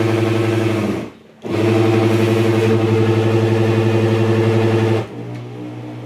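Kitchen blender motor running loud and steady while straining on thick carrot cake batter. It cuts out about a second in, starts again half a second later, and about five seconds in drops to a quieter, lower note.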